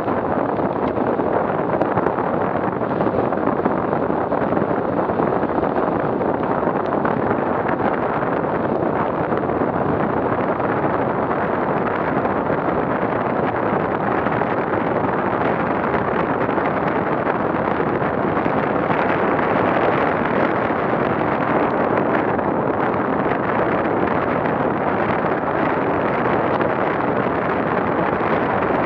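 Steady rush of wind over the microphone of a camera on a bicycle riding at about 40 km/h.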